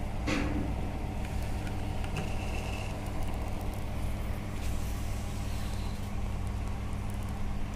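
A steady low hum runs throughout, with a few faint clicks and a brief thin high tone about two seconds in.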